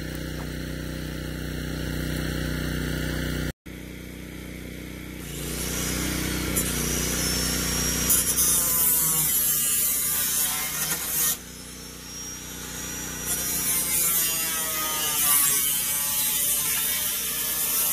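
A steady low hum, then an angle grinder cutting a window opening through the blind's front siding. It runs in two spells, a hissy cutting noise with a thin high whine, pausing for a couple of seconds midway.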